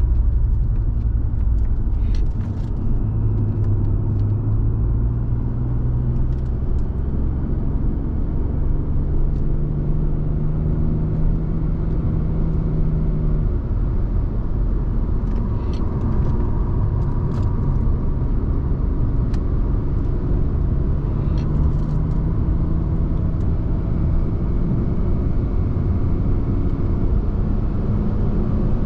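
Inside the cabin of a 2005 Audi A6 2.4 at cruising speed: the V6 petrol engine drones steadily under tyre and road rumble, its pitch shifting a little with the throttle and rising slightly near the end, with a few faint ticks.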